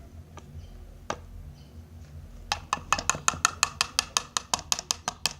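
A nearly empty bottle of blue paint being knocked against the plate to get the last paint out: a fast, even run of sharp taps, about six a second, starting about halfway, after a couple of single clicks.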